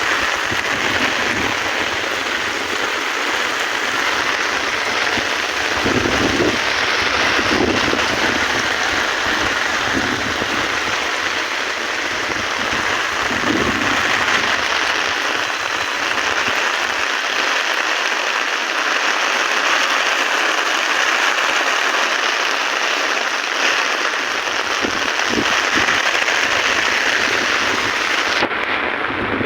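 Torrential cloudburst rain pouring down in a dense, steady hiss.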